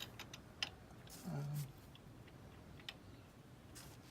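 Faint, scattered metal clicks and taps from bolts being fitted by hand into a short shifter's mounting under a car. About a second and a half in comes a short, low vocal sound that falls in pitch and then holds.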